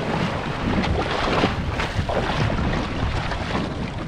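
Wind buffeting the microphone over choppy sea around a small boat, a steady rushing noise with a heavy low rumble that swells and eases in irregular gusts.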